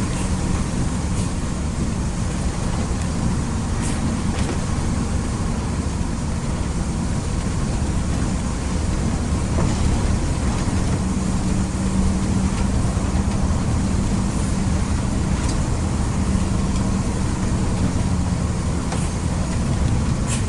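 Intercity bus travelling on the road: steady engine drone and road noise, the engine hum growing stronger for several seconds about halfway through.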